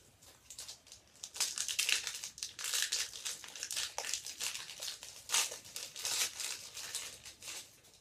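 Hockey card pack wrapper being torn open and crinkled, a dense run of crackly rustling that starts about a second in and stops just before the end.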